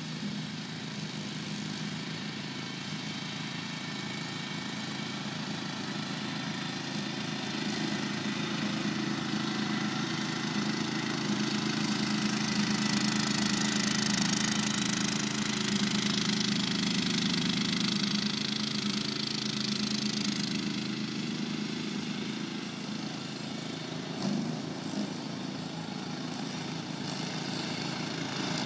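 AS Motor Freerider 800 ride-on mower, its 16 hp single-cylinder Briggs & Stratton Intek engine running steadily under load with the cutting deck mowing thick grass. It grows louder towards the middle as the mower comes closer, eases off, then rises again near the end, with a couple of brief knocks in between.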